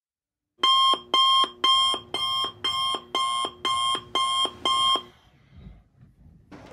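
Electronic alarm beeping: nine identical beeps, about two a second, that stop about five seconds in.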